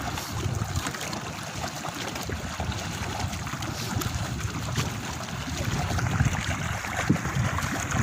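Water trickling and splashing with many small ticks, over a low rumble of wind on the microphone.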